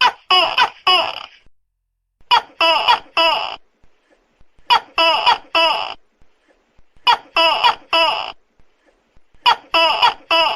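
Tokay gecko calling loudly: a run of three sharp, pitch-bending 'to-kek' calls, repeated about every two and a half seconds, five times.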